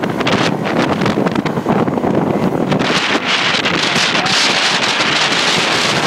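Wind rushing over the microphone of a moving motorcycle, steady and loud, growing hissier about three seconds in.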